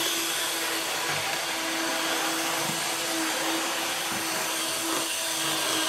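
N scale model locomotive running steadily at mid throttle around the layout: an even motor whir with a steady hum tone.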